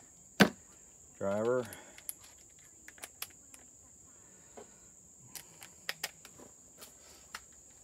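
A few sharp clicks and taps of hand tools being handled, the loudest about half a second in, with smaller ones scattered through the rest. A steady high-pitched insect drone, cicadas or crickets, runs underneath. The cordless impact driver is not run.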